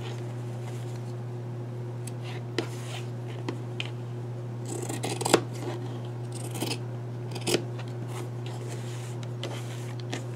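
Small scissors cutting through quilted cotton fabric and batting to trim out sewing darts: a scattering of separate snips, the loudest about halfway through.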